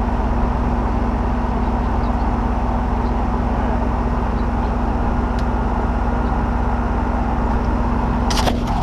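Central air conditioner's outdoor unit running steadily: compressor hum with the condenser fan, the compressor back in service after its burned terminal wiring was rebuilt with a terminal kit. A few sharp clicks near the end.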